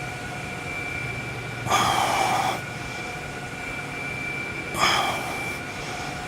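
A person breathing out hard twice, about three seconds apart, each breath lasting close to a second: effortful exhales during squat reps. A faint steady hum runs underneath.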